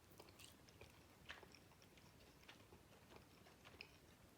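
Faint eating sounds from chewing chicken wings: a few soft, scattered mouth clicks and smacks, the clearest about a second in.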